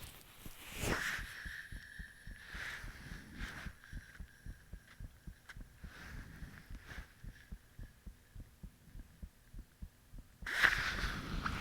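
A person's heartbeat heard close up: a quick, regular run of short low thumps. A louder noise across most pitches comes in suddenly near the end.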